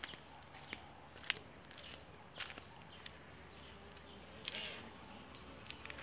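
Faint buzzing of honey bees around a wooden hive entrance, plainer in the last two seconds. A few sharp clicks are heard earlier.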